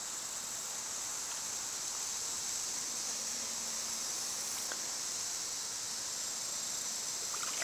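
Steady high-pitched chorus of insects, with a faint low hum underneath during the first half.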